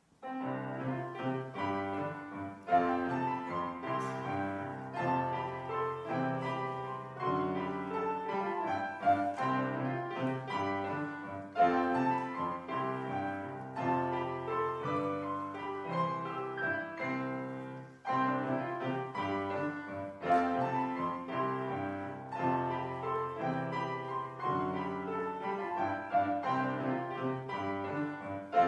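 Trio music: piano with bowed strings, playing a classical-style piece that starts abruptly.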